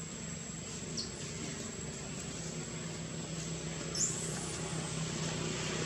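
Steady low engine-like hum under a thin high steady tone, with two short high-pitched chirps about one second and four seconds in, the second one sweeping upward.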